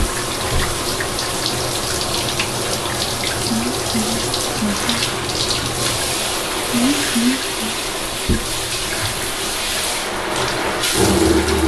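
Handheld shower sprayer running steadily, rinsing a wet pug in a bathtub, with water spraying onto its coat and the tub. The water gets louder and fuller near the end.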